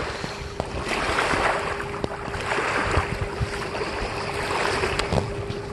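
Wind rushing and buffeting across the microphone outdoors, swelling a couple of times, with a faint steady hum underneath.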